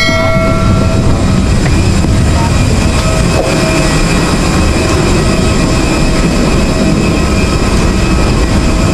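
Steady loud rumble of an airliner at the gate, heard from the aircraft door and jet bridge, strongest in the low range.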